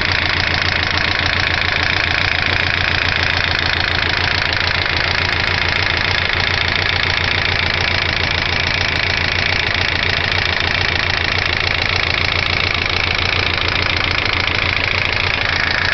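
2003 Ford Focus petrol engine idling steadily with a rapid, even knocking from inside the engine, the knock whose cause the owner is asking mechanics to identify.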